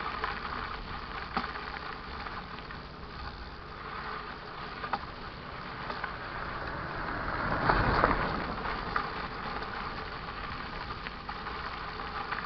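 Steady rushing noise of a mountain bike ride on a dirt trail, with scattered clicks and rattles and a louder swell about eight seconds in.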